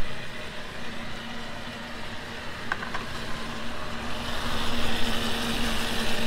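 A steady motor hum over street background noise, with a couple of light clicks about halfway through. A hiss grows louder over the last couple of seconds.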